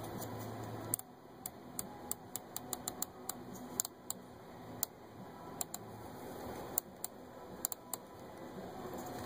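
Irregular light clicks and taps of a ribbon connector cable being handled and fitted to a display circuit board. A low background hum stops about a second in.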